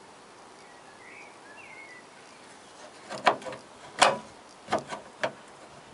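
Four sharp knocks and clicks of a hand handling the boot-lid latch and the metal panel around it, the loudest about four seconds in. Faint chirping sounds before the knocks.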